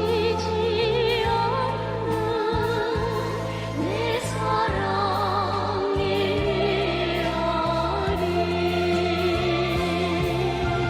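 North Korean pop song: voices singing with strong vibrato, backed by a choir, over a steady bass line.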